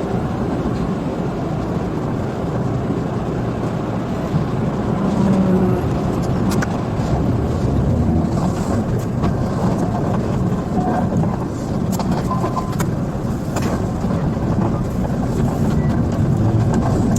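Steady rumble and rattle of a train running on the track, heard from on board, with scattered clicks and knocks.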